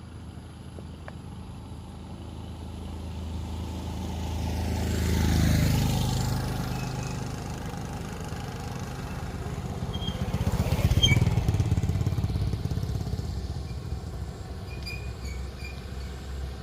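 Motor vehicles driving past over a steady engine hum: one passes about five seconds in and a louder one about eleven seconds in, each rising in loudness and dropping in pitch as it goes by.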